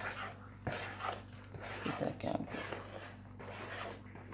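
A spoon stirring and scraping thick banana dumpling dough of mashed banana, egg and flour in a bowl, in irregular strokes with one sharper click under a second in.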